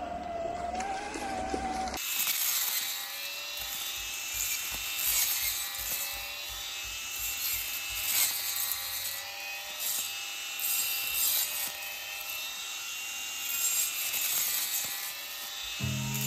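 A small electric wagon motor whines steadily for about two seconds. Then a brush cutter's spinning disc head sweeps through dry grass and weeds with a high whine, swelling and easing as it cuts.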